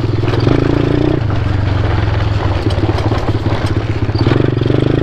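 ATV (quad bike) engine running hard at full throttle, with a fast, even firing pulse. Its pitch rises briefly about half a second in and again near the end.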